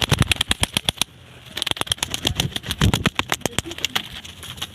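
A captured zebra dove beating its wings in two rapid flurries, about ten wingbeats a second.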